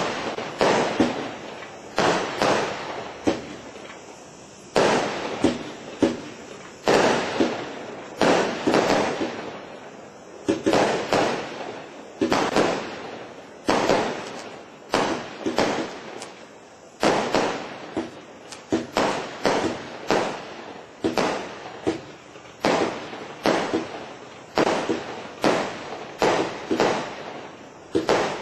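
Standard Fireworks 'Overload' multi-shot firework cake firing a long, irregular run of shots into the sky. The sharp bangs come roughly once a second, sometimes in quick pairs, and each fades out over a fraction of a second.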